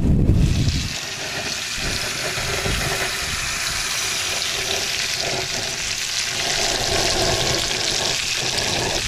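Fish sizzling steadily as it fries in a skillet, setting in about half a second in.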